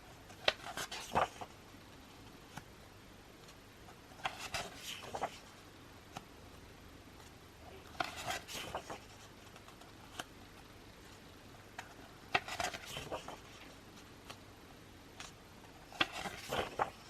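Pages of an album's photo book being turned by hand: five short paper rustles with light clicks, about four seconds apart.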